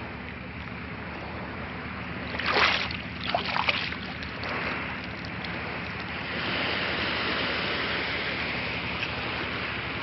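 Seawater lapping and sloshing right by the phone's microphone, with a few louder splashes between about two and a half and four seconds in. A low, steady hum runs underneath.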